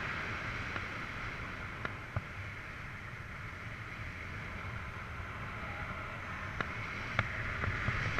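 Airflow rushing steadily past the camera of a paraglider in flight, with a few faint sharp ticks.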